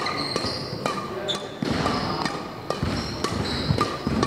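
Badminton play: rackets striking the shuttlecock in quick sharp cracks and sports shoes squeaking on the wooden court floor, with voices in the background.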